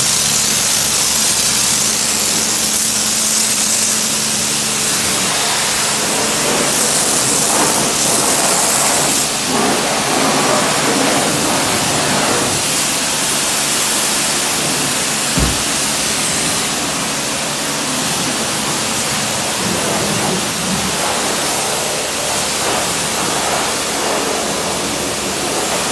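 Car-wash pressure washer spraying: a steady hiss that swells for a few seconds near the start. A single low thump comes about fifteen seconds in.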